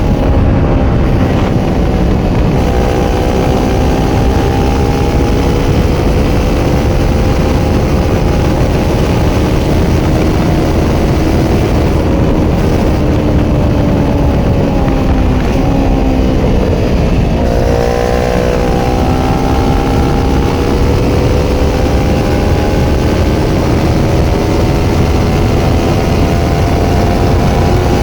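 Kawasaki Ninja 400 parallel-twin engine running at highway speed through a Yoshimura slip-on exhaust, with a heavy rush of wind. The engine note steps down about two and a half seconds in, then around seventeen seconds in dips sharply and climbs back up.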